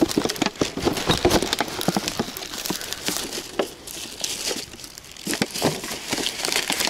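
Plastic bottles and a thin plastic bag crinkling and crackling as they are handled, with footsteps crunching on dry reeds and grass. The crackling is irregular, busiest in the first two seconds and again near the end.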